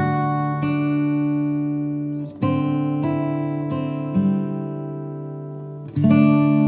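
Background music: guitar chords strummed every second or two, each left to ring out.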